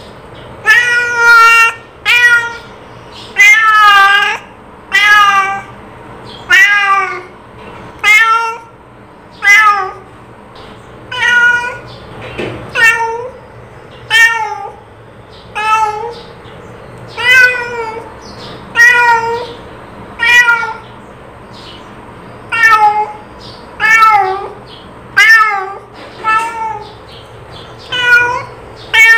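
A cat meowing over and over, about one meow every second and a half, each meow rising then falling in pitch.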